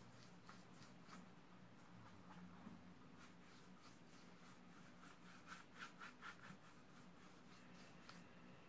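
Faint brushing of a wide flat bristle brush laying gouache across paper: soft repeated strokes, with a quicker, louder run of four or five strokes a little past the middle.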